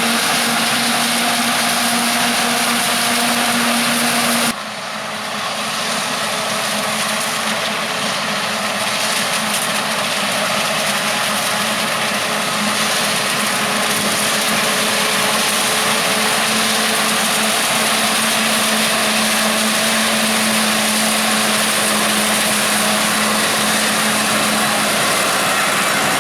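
Forage-harvesting machinery running steadily at work in maize, a continuous loud hiss and drone with a steady whine underneath. The mix changes suddenly about four and a half seconds in and then runs on steadily.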